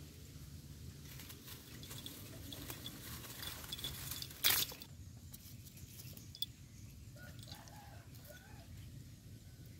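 Dry leaves and twigs rustling and crackling as a pet mongoose roots through leaf litter, with one short, louder rustle about four and a half seconds in.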